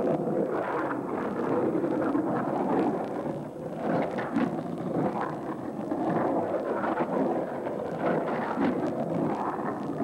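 Skateboard wheels rolling on the concrete of an empty swimming pool: a continuous rumble that swells and fades as the board carves, with a few faint clacks.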